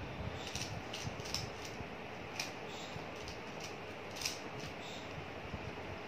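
Plastic 3x3 Rubik's cube being turned quickly by hand: irregular light clicks of the layers snapping round, over a steady hiss.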